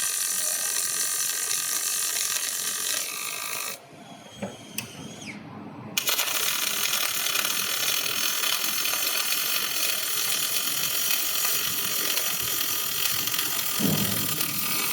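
Robotic arc welding on a fan impeller: the welding arc crackles and hisses steadily. It stops about four seconds in and strikes again sharply two seconds later, as the robot welds one seam segment at a time.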